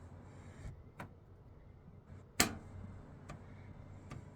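Plastic body-filler spreader clicking and tapping against a car panel as it works tacky filler: a few sharp clicks, the loudest about two and a half seconds in, over a steady low hum.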